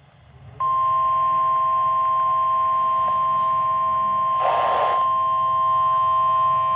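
NOAA Weather Radio warning alarm tone: a loud steady beep that starts about half a second in and holds without a break, announcing an incoming warning broadcast. A brief noise rises over it about four and a half seconds in.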